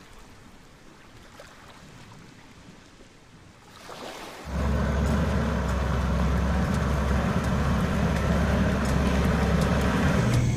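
Engine and dirt-road rumble heard inside a moving safari vehicle's cabin: a steady, loud low rumble that cuts in abruptly about four and a half seconds in, after a few faint seconds.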